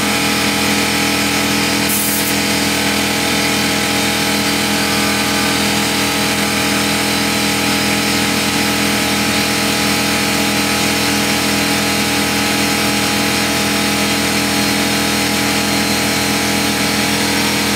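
Porter Cable 6-gallon pancake air compressor running steadily and loudly, its pump charging the tank toward its 150 psi cut-off. A brief faint hiss of air sounds about two seconds in.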